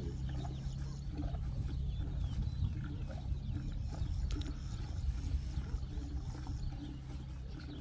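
A cow being hand-milked into a pail, with faint scattered squirts and rustling over a steady low hum.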